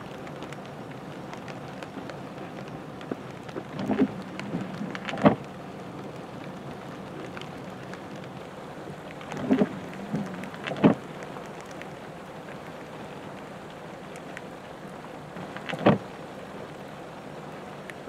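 Freezing rain falling steadily, a constant hiss of drops on ice-glazed surfaces, broken five or six times by short sharp knocks.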